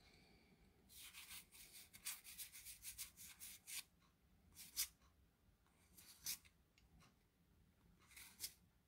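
Faint rubbing and swishing of unsleeved Magic: The Gathering trading cards sliding against one another as they are flipped through by hand. A quick run of rubs comes about a second in, followed by a few single swipes.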